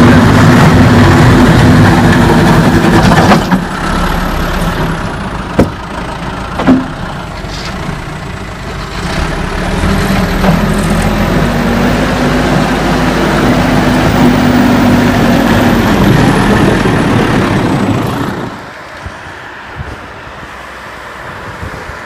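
Caterpillar backhoe loader's diesel engine running under load as it pushes snow with the front bucket. It is loud for the first few seconds, drops back with a couple of short knocks, comes up strongly again about nine seconds in, then fades to a low background near the end.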